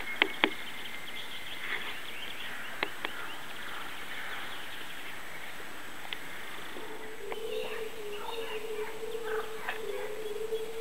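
Outdoor ambience of wild birds chirping and singing, with a few sharp clicks in the first three seconds. About seven seconds in, a steady, slightly wavering low hum sets in under the birdsong.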